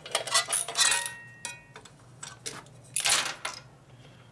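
Metal parts and hand tools being handled, clinking and clattering: a run of sharp clinks in the first second or so with a short metallic ring, then another clatter about three seconds in.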